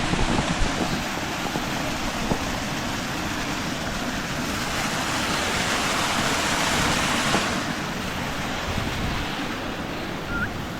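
Waterfall rushing steadily: an even hiss of falling water that swells louder for about three seconds midway.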